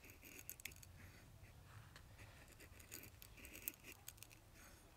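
Faint clicks and short scrapes of a knife blade working into a small stick of dry wood, shaving it for kindling.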